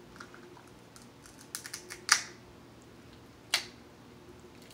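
Crab shell being cracked and picked apart by hand: a quick run of small clicks and snaps about a second and a half in, a sharp crack just after two seconds, and another crack about three and a half seconds in.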